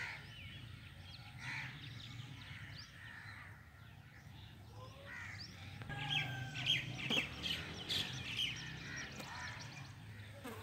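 Outdoor birdsong: many birds chirping, with crows cawing among them, the calls growing busier and louder about six seconds in.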